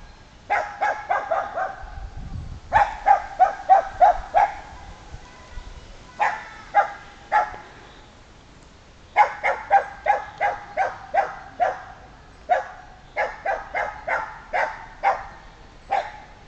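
A Sealyham terrier barking in rapid runs of sharp barks, about two or three a second, with short pauses between runs: a working terrier baying at a wild boar.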